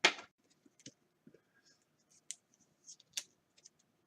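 Trading cards and plastic card holders being handled on a table: a sharp tap right at the start, then scattered light clicks and rustles as cards are shuffled and set down.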